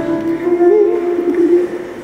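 Background music of long held notes, with a singing voice wavering in pitch near the middle.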